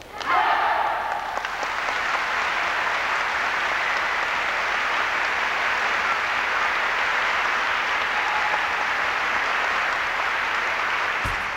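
Large audience applauding, starting suddenly just after the start and holding steady throughout.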